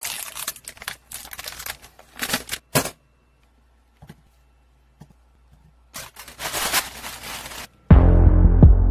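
A plastic packet crinkling and tearing as it is opened, in rustling bursts over the first three seconds, then a quiet gap with a couple of small clicks and another stretch of rustling. Music with a deep throbbing bass starts near the end.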